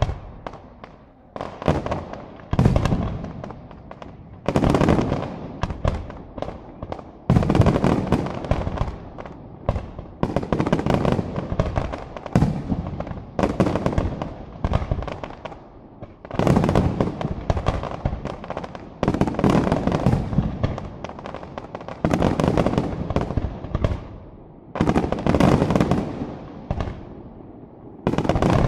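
Aerial fireworks display firing rapid volleys of launches and bursts. Dense runs of bangs and crackle come in waves a second or two apart.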